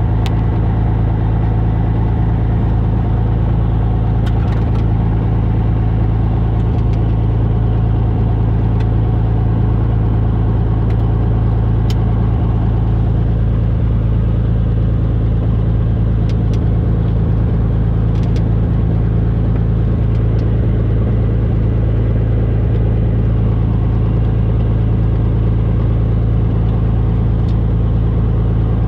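Small propeller airplane's engine and propeller running, heard from inside the cabin as a loud, steady drone with a strong low hum.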